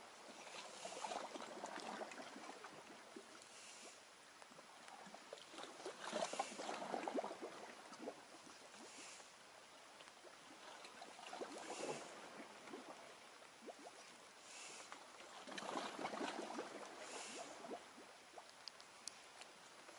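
Small waves lapping and sloshing against the water's edge, swelling up about every five seconds, with a few faint clicks.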